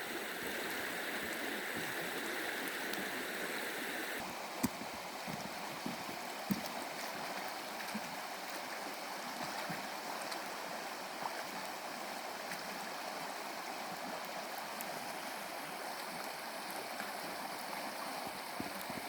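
Floodwater running over a roadway: a steady rush of flowing water with a strong current, and a few faint clicks.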